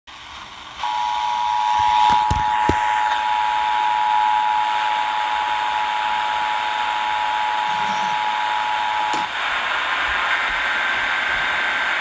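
Emergency Alert System two-tone attention signal (853 and 960 Hz sounding together) coming from a portable radio's speaker over a steady hiss. It marks the start of a Required Monthly Test. The tone cuts off about nine seconds in and the hiss carries on.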